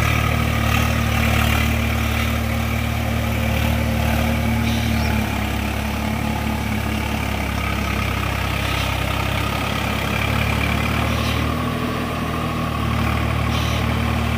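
Swaraj 744 FE tractor's three-cylinder diesel engine running steadily under load while driving a rotavator through wet paddy mud. Its note shifts slightly about five seconds in and again between about ten and thirteen seconds.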